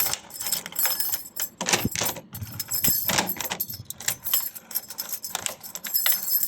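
Keys jangling and clinking, with a run of sharp metallic clicks, handled at a newly fitted door lock.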